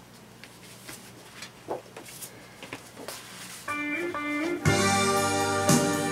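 Faint rustling and clicking of paper record sleeves being handled, then, nearly four seconds in, rock music with electric guitar starts: a short guitar figure, then the full band coming in loudly about a second later.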